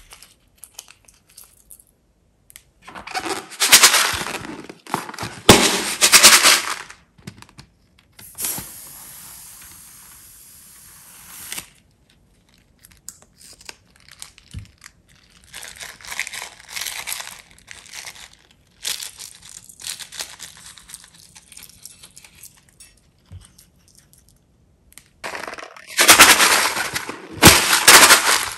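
Rubber balloons handled and squeezed as they are emptied into a bowl of slime: loud bursts of crackling, rubbing noise, with a steady hiss lasting a few seconds about a third of the way in.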